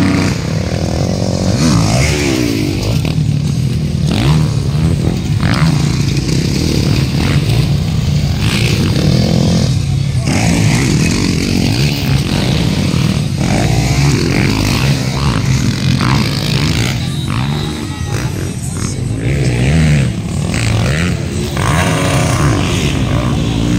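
Motocross dirt bikes racing on a dirt track, their engines revving up and backing off as they work through the turns and jumps.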